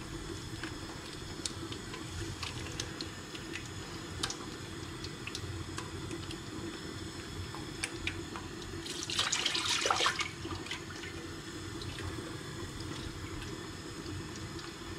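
Light scattered clicks of a spoon stirring a pot of thick tomato curry over a steady low hum. About nine seconds in, water runs briefly for about a second, as from a kitchen tap.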